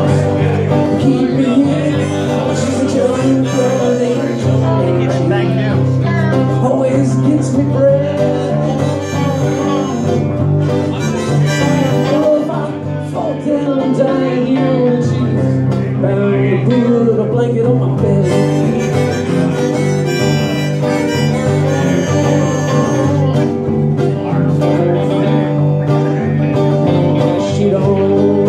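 Live country-style band playing, a harmonica carrying the lead over acoustic guitar and electric bass.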